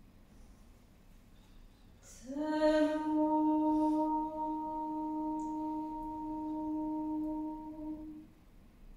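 A woman singing unaccompanied: after about two seconds of quiet, one long note that slides up slightly as it starts and is then held steady for about six seconds before it stops.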